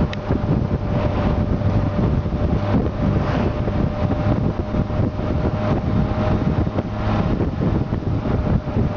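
Wind buffeting the microphone over the steady drone of a Honda Gold Wing touring motorcycle's engine while riding at road speed.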